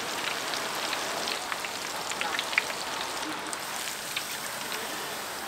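Battered food deep-frying in hot oil: a steady sizzle with scattered small crackles and pops.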